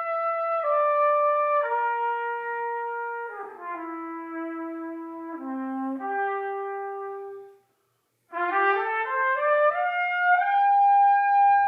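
A solo brass instrument playing an unaccompanied jazz melody: a phrase of notes stepping mostly downward, a short pause, then a quick rising run that ends on a long held high note.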